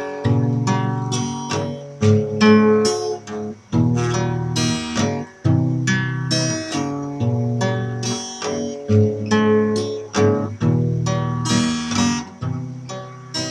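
Acoustic guitar strumming chords in a steady rhythm, with no singing: the instrumental ending of the song.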